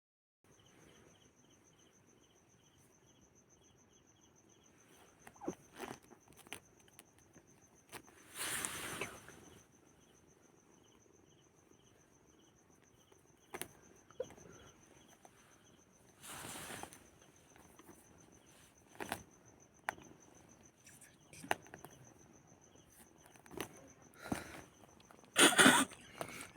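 Insects trilling steadily in the background, with a broken line of short chirps that stops about halfway. Scattered clicks and short rustling noises come over it, and the loudest, a cluster of scuffles, comes near the end.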